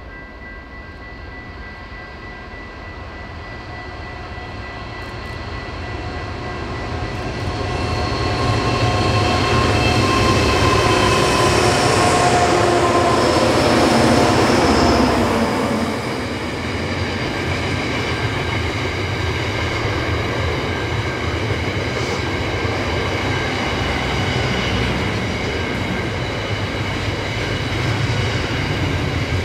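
Diesel-powered train climbing a steep grade and passing close by. Its engine note builds for several seconds, drops in pitch as the lead unit goes past about halfway through, and the train then keeps rolling past steadily.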